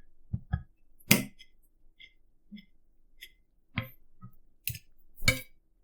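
Knife and fork knocking and clinking on a plate while steak is eaten: about ten separate short clicks and knocks, the loudest about a second in and near the end.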